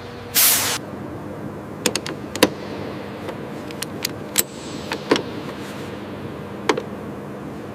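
Aircraft workshop work sounds. A short, loud hiss about half a second in is followed by a scattered series of sharp metallic clicks and clinks, some with a brief ring, over a steady machine hum.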